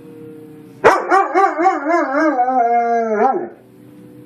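White shepherd dog howling once for about two and a half seconds, starting about a second in. The pitch warbles quickly, about four times a second, then steadies and falls away at the end: the dog imitating a tornado siren.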